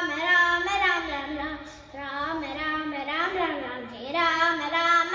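A young boy singing a Ram bhajan in Carnatic style, unaccompanied, with long held notes that slide and waver in pitch.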